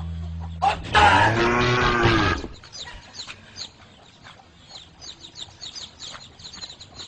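A cow gives one loud moo about a second in, lasting about a second and a half. Then birds chirp rapidly with short, high calls.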